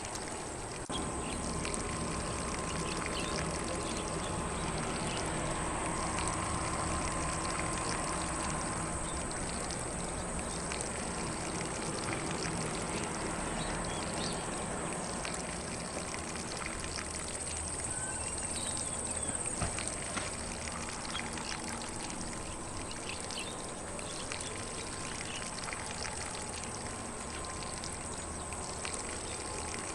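Lawn sprinkler spraying water onto grass, a steady hiss and patter of falling water, with faint bird chirps here and there.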